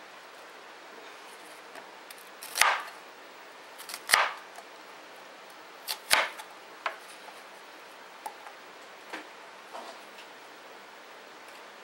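Long kitchen knife slicing through a red onion and striking a plastic cutting board. Three loud, sharp cuts come about one and a half to two seconds apart, followed by several lighter taps.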